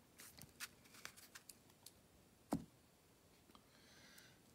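Baseball cards being handled and set down on a mat: a string of small, quiet clicks and taps, one louder knock about two and a half seconds in, and a faint rustle near the end.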